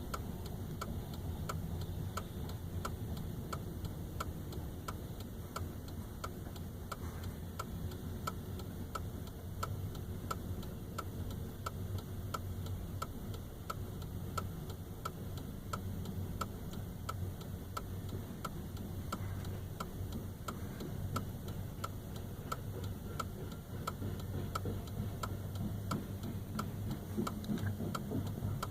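Slow freight train of empty flatcars rolling past with a steady low rumble. A short, even tick sounds about twice a second throughout.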